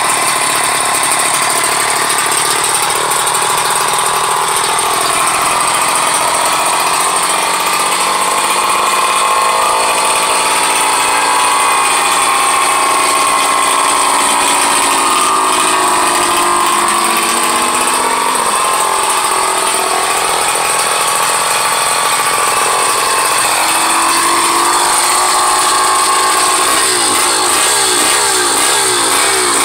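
Small two-stroke engine of a motorized bicycle kit running steadily at idle, its pitch wandering slightly up and down.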